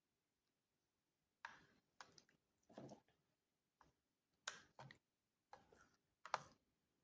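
Faint, irregular clicks and knocks of small hard objects being handled: about eight short taps, some with a dull thud, beginning about a second and a half in.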